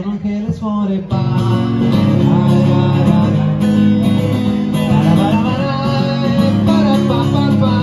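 Music led by a strummed acoustic guitar over a steady bass line.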